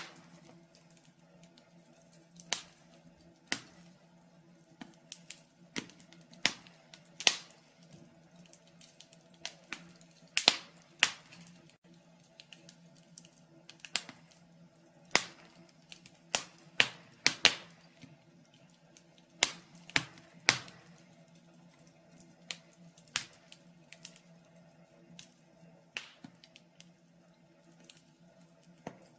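Wood fire in a fireplace crackling: irregular sharp pops and cracks, roughly one a second and sometimes two in quick succession, over a faint steady low hum.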